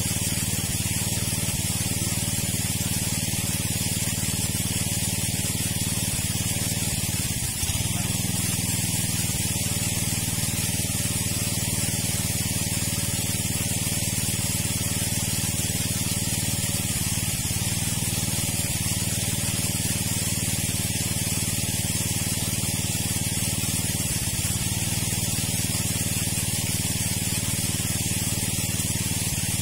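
Engine-driven water pump running steadily with a constant hiss of rushing water, pumping the pond down.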